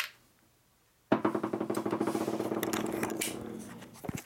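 Steel Knucklehead flywheel half rattling and ringing against a steel workbench, a fast even rattle with a ringing tone that starts suddenly about a second in and fades over about three seconds.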